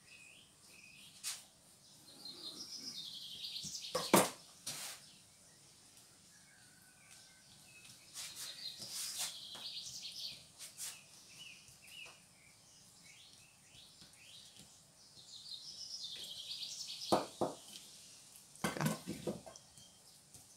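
A bird chirping and twittering in repeated short phrases, with sharp knocks and handling noises on the table between them; the loudest knock comes about four seconds in.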